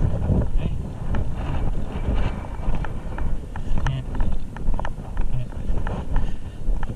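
Irregular clicks and knocks over a low rumble, like footsteps and gear jostling on a moving body-worn camera, with wind on the microphone.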